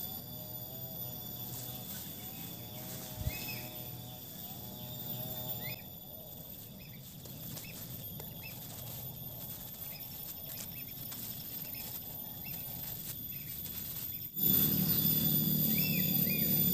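Outdoor rural ambience: a steady high-pitched insect drone with short bird chirps repeating every second or two. Near the end a louder low hum cuts in suddenly.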